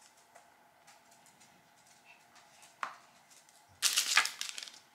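Quiet room with a soft click near three seconds in, then about a second of crinkling plastic wrapping being handled.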